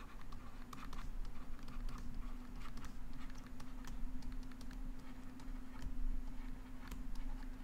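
Stylus tapping and scratching on a tablet screen while handwriting, heard as a run of faint irregular clicks over a steady low hum.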